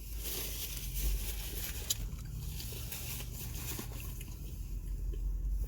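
A person chewing food close to the microphone: soft wet mouth sounds and faint scattered clicks over a steady low hum.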